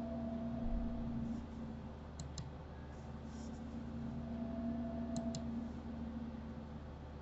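Computer mouse clicks: two quick pairs of clicks, about two and five seconds in, over a steady low hum.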